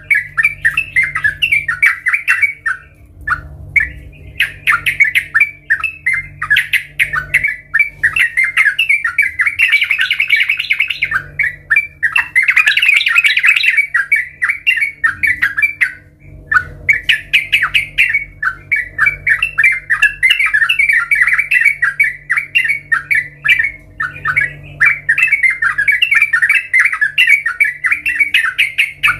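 Yellow-vented bulbul (trucukan) singing: long runs of rapid chattering notes, broken by short pauses every several seconds, over a faint steady low hum.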